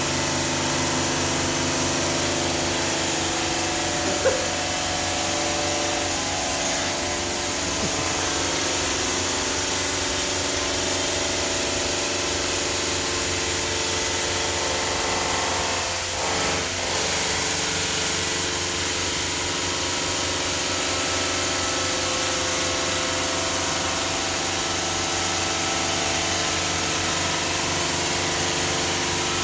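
Denver 5-axis CNC bridge saw cutting 20 mm black granite: a steady mechanical whine with several tones over a constant hiss of water spray and blade on stone. There is a short sharp tick about four seconds in and a brief dip in the noise about sixteen seconds in.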